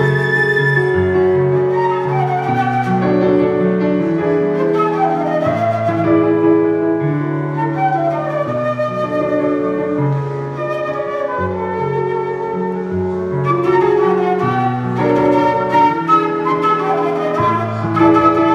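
A transverse flute playing a melody over held chords from an electronic keyboard, a live flute-and-keyboard duo.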